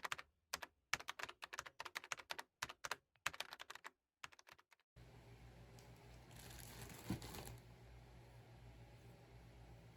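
Rapid computer-keyboard typing, a quick irregular run of key clicks, for about five seconds. It stops abruptly into faint room noise with a low hum, and a brief rustle comes about two seconds later.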